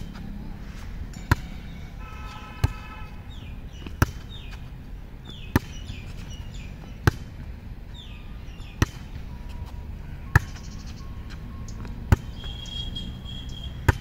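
A volleyball struck again and again on the forearms in repeated underhand passes (bumps), each a sharp slap, about one every second and a half, nine hits in a row.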